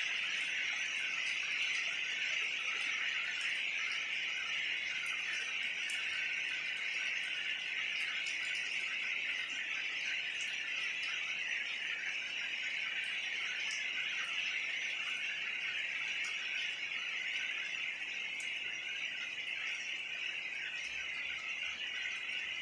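A steady, dense, high-pitched chorus of small night creatures, unbroken throughout, with faint scattered ticks above it.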